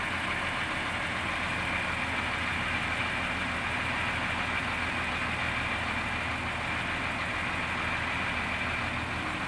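Heavy diesel engine idling steadily, a constant low hum with no revving or changes.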